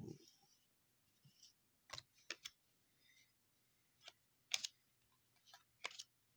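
Faint, scattered sharp clicks and snaps of trading cards being flipped through by hand and set down on a table, about half a dozen ticks with the loudest a little past halfway.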